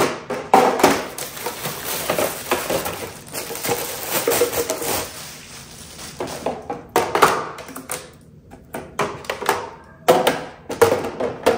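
Clear plastic storage bins and their lids and slotted liners being handled and set down on a stone countertop: a run of plastic clatters, taps and knocks.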